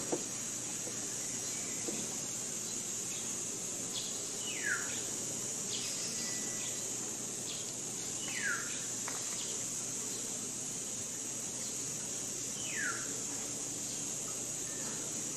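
Forest ambience: insects keep up a steady high-pitched drone, while a bird gives a short falling whistle three times, about four seconds apart.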